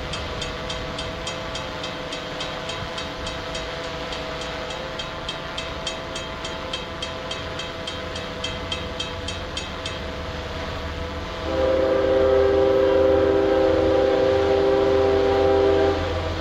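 Freight train passing, with steady tones and evenly spaced high ticks about three a second that stop about ten seconds in. Near the end a diesel locomotive's air horn sounds one loud blast of about four and a half seconds.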